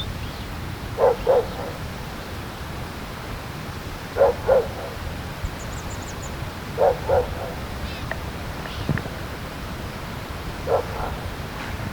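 A dog barking in pairs, two quick barks at a time, four times about three seconds apart, the last a single bark. A faint high, thin bird trill sounds briefly in the middle.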